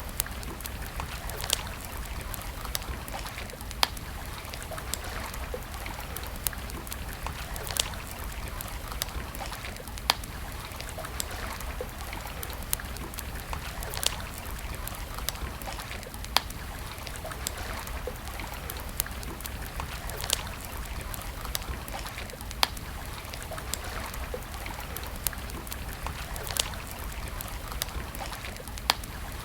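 Wood campfire crackling, with many small snaps and a sharper pop every second or two over a steady hiss.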